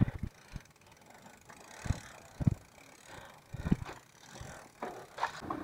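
Mountain bike's rear freewheel hub ticking as the bike coasts, with a few dull knocks from the bike on rough ground.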